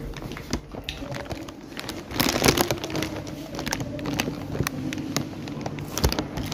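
Crackling, rubbing and clicking handling noise from a hand-held phone being carried, with a louder rustle about two seconds in and a faint steady low hum underneath.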